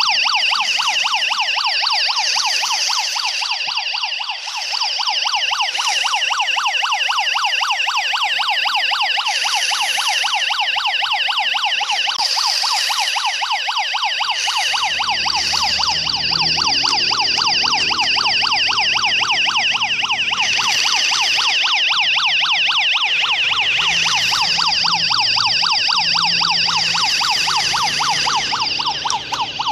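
A battery-powered toy police car's electronic siren plays continuously as a fast, loud warble.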